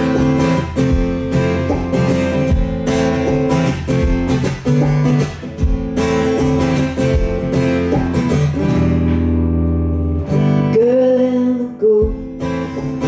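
Acoustic guitar strummed in a steady rhythm, then a low chord held for about a second and a half. After that comes a brief wavering tone, and the strumming picks up again near the end.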